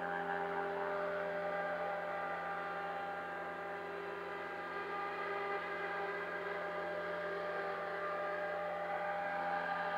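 Steady hum of small electric propeller motors, several steady pitches sounding together without a break.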